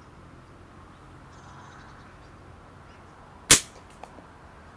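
Moxie Scorpion slingshot fired with steel ammo: the bands and pouch snap forward on release with one sharp, loud crack, followed about half a second later by two faint ticks.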